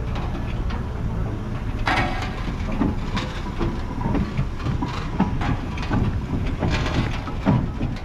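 1917 Fowler BB steam ploughing engine running, with a low steady hum at first and then irregular mechanical knocks and clanks; one sharp metallic clank rings briefly about two seconds in.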